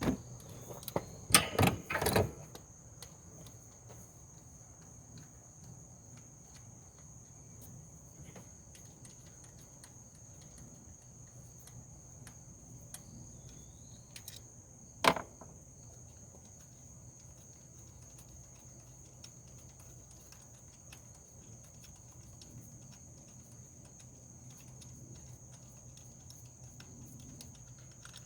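A few sharp metallic clicks and clanks of hand tools, a 10 mm socket wrench working the ignition coil bolts, in the first two seconds and once more about halfway, over a faint steady high-pitched tone.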